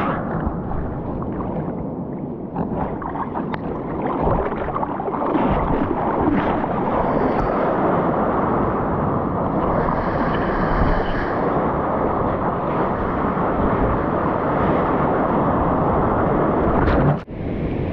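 Whitewater rushing and splashing around a surfboard as it rides a broken wave, with wind buffeting the camera microphone. The sound breaks off abruptly about 17 seconds in and gives way to a weaker surf and wind noise.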